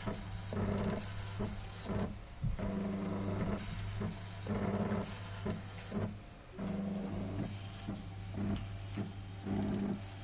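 Stepper motors of a homemade Arduino pen plotter buzzing in short start-stop strokes as they drive the pen back and forth drawing lines, over a steady low hum.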